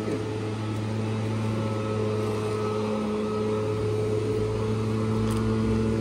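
An engine running at a steady idle, a constant low hum that does not change in pitch.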